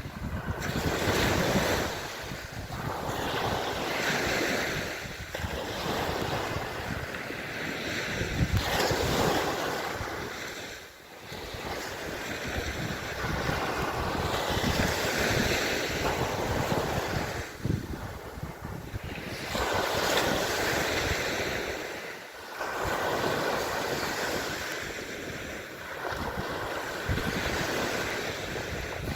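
Sea waves surging and washing, rising and ebbing every few seconds, with wind buffeting the microphone.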